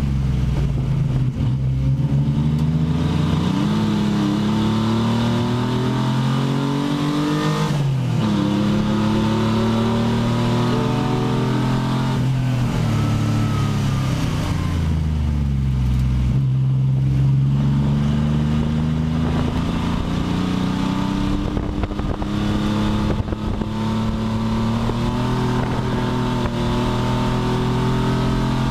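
Pontiac Fiero race car's engine heard from inside its cockpit, pulling hard and climbing in pitch. It drops sharply about eight seconds in, falls away again under braking near the middle, then climbs and holds a steadier note.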